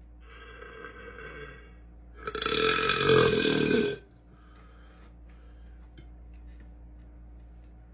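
A man burping: a shorter, quieter burp about a quarter of a second in, then a long, loud burp starting about two seconds in and lasting nearly two seconds.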